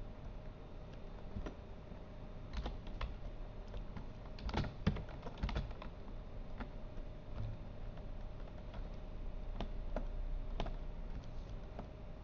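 Computer keyboard keys clicking irregularly as shortcuts are pressed: scattered single taps, with a quick run of presses about four and a half to five and a half seconds in, over a faint steady hum.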